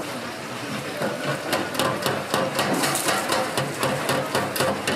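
Fast, regular sharp knocks of a kitchen utensil striking a hard surface, about five a second, starting about a second and a half in, over the clatter of a busy food-stall kitchen.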